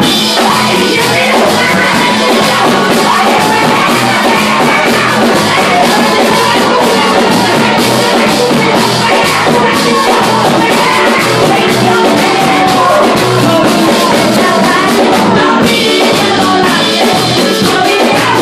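Live church worship music, loud: a woman singing a Spanish-language chorus into a microphone over hand drums and percussion keeping a steady beat.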